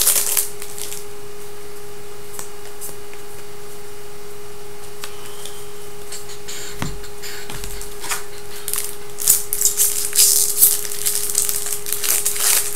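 Trading-card pack wrappers crinkling and cards being handled in short crackly bursts, thickest in the last few seconds, over a steady low hum.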